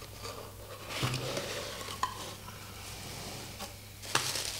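A cardboard box being opened by hand and the plastic bubble wrap inside rustling and crinkling, with a few sharp clicks and crackles, the sharpest near the end.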